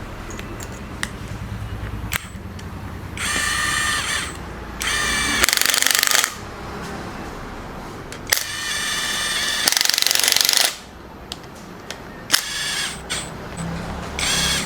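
Cordless drill-driver whirring in several short bursts of a second or two each as it runs in the cylinder head bolts on a KTM Duke 390 engine, with a few sharp clicks between the bursts.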